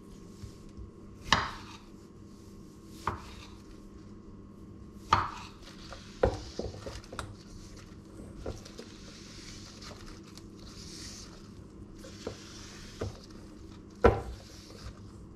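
Kitchen knife knocking on a bamboo cutting board as cherry tomatoes are sliced: a handful of sharp, irregularly spaced knocks rather than a steady chopping rhythm. In the middle stretch there is a soft rustling as lettuce leaves are moved into a metal bowl.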